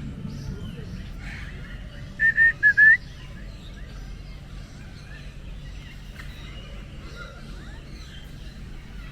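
A bird calling four short, loud, clear notes in quick succession about two seconds in, with faint chirps of other birds around it.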